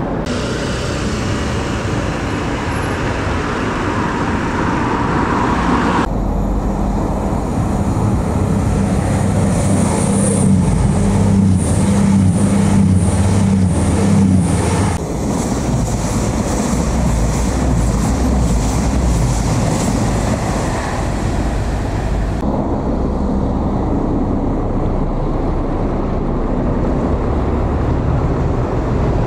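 Diesel trains passing, in three cuts: a Class 222 Meridian diesel multiple unit running by; then a diesel unit passing right underneath with a steady engine drone and a run of sharp wheel clicks over rail joints; then Class 37 diesel locomotive 37510 approaching with its English Electric engine running.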